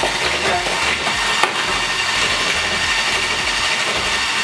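Handheld electric mixer running steadily, its beaters whisking butter, sugar and egg into a creamed mixture in a bowl. One sharp tap sounds about a second and a half in.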